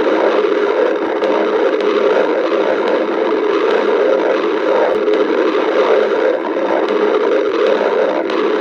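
A hungry person's stomach growling: a loud, continuous rumbling gurgle that never breaks off.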